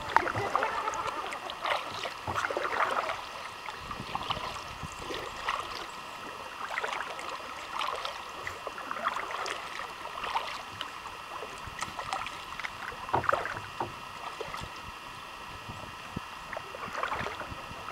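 Kayak paddle strokes: the paddle blades dip and splash in calm river water, about once a second.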